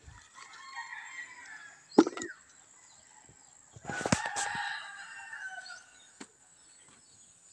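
A rooster crowing faintly, twice, the second call longer. Over it come a few sharp snaps and leaf rustles from snap beans being picked off the vine, the loudest snap about two seconds in.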